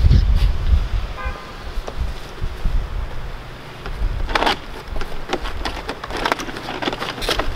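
Wind buffeting the microphone as a steady low rumble, with a run of sharp plastic clicks and rattles in the second half as a vinyl siding outside-corner post is handled and pressed into place against the siding.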